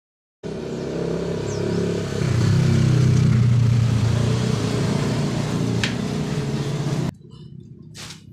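An engine running with a steady low hum. It starts suddenly, grows louder about two seconds in, and stops abruptly about seven seconds in, leaving a few faint clicks.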